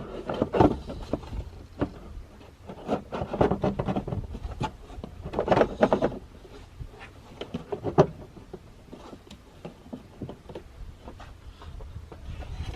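Irregular plastic knocks, clicks and scraping as a cold air intake airbox is handled and worked down into place in a truck's engine bay.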